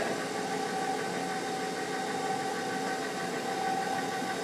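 Electric stand mixer's motor running steadily with a constant whine, driving a pasta roller attachment that is flattening a sheet of fresh pasta dough.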